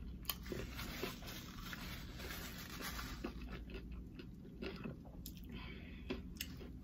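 Close-up chewing of a fried chicken slider, with soft crunches and scattered small mouth clicks.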